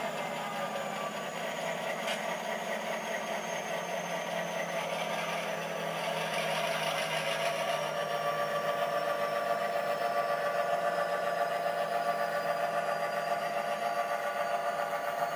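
Sound decoder of an HO scale EMD GP7 model locomotive playing the rumble of a 567 diesel engine through the model's small speaker as the locomotive moves off. The engine sound grows louder about six seconds in, and a thin high whine slowly falls in pitch.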